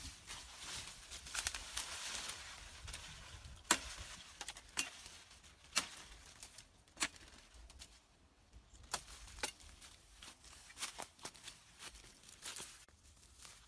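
Machete blade striking a wooden stick as it is cut from the brush and trimmed, a run of irregular sharp knocks, about a dozen, among the rustle of leaves and twigs.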